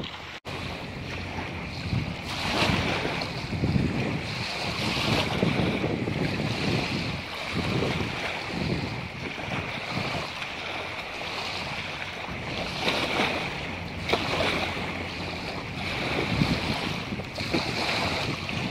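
Wind buffeting the microphone in uneven gusts over a steady rushing hiss, with a brief dropout just after the start.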